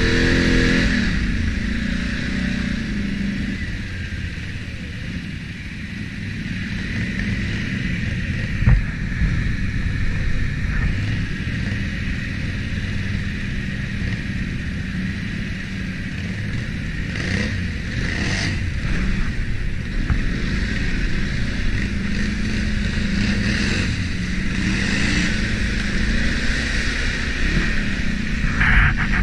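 ATV engine running while riding a trail, its pitch rising and falling as the throttle opens and eases off, with one sharp knock about nine seconds in.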